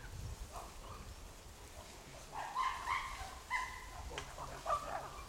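Calls of chimpanzees and red colobus monkeys during a chimpanzee hunt in the trees: a string of short, high calls beginning about two seconds in and coming thick through the second half.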